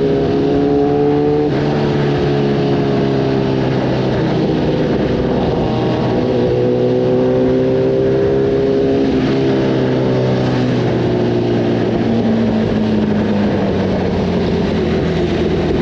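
Kawasaki ZX10R's inline-four engine running through an Arrow racing exhaust while riding at moderate revs. The pitch jumps once about a second and a half in, then climbs gently, eases off and settles lower near the end as the throttle changes.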